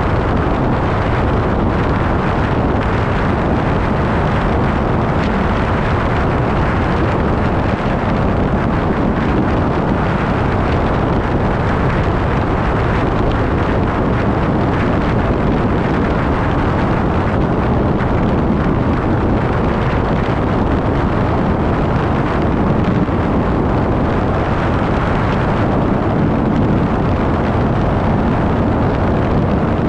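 Steady wind rush and road noise from a vehicle travelling at highway speed, with wind buffeting the microphone.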